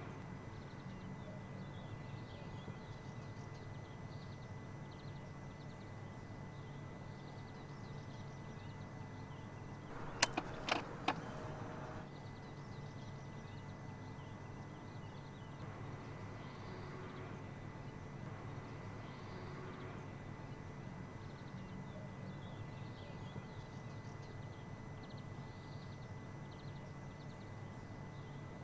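Quiet, steady background hum with a quick run of three or four sharp clicks about ten seconds in.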